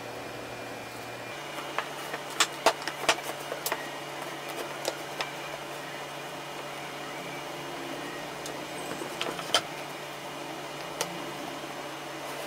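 Wooden slats of a folding stool frame knocking and clacking against each other and the workbench as they are handled and folded. There is a cluster of sharp knocks about two to five seconds in and a few more later, over a steady low hum.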